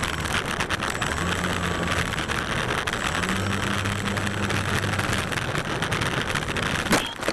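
RC plane's electric motor and propeller running close to the onboard camera, a steady buzzing whirr with a rattle through it. A single sharp crack about seven seconds in.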